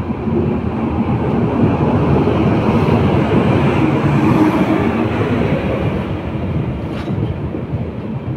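Steady rumble of an Indian Railways express coach running out of the station, heard from its open door, with a WAP-7 electric locomotive passing close by on the adjacent track; the noise swells to its loudest about midway as the locomotive goes past.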